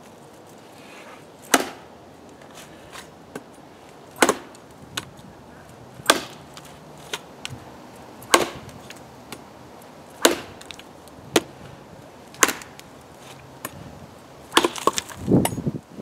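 A Nature Xplore machete chopping into a dry, very hard log: about seven sharp chops roughly two seconds apart, then a quicker run of knocks near the end.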